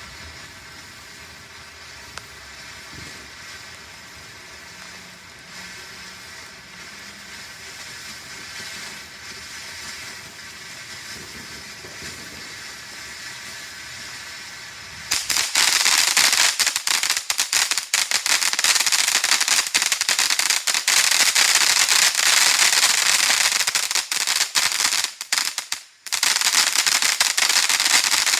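Firework going off inside a plastic toy washing machine. About fifteen seconds in it bursts into a loud, dense run of crackling pops and hiss that goes on for about thirteen seconds, with a brief break near the end; "really loud".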